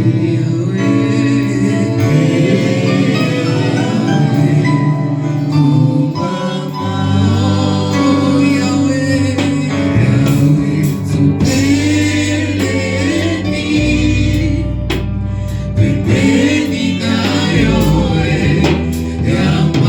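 Church choir singing a gospel song with instrumental backing, over a steady bass line.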